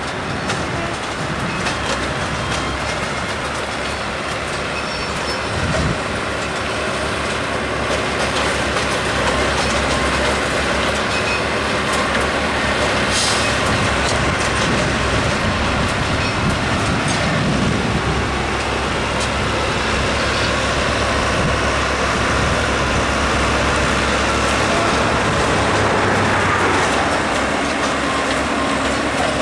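Engine of a small self-propelled rail maintenance machine running steadily as the machine rolls along the track. There is a brief high hiss about halfway through.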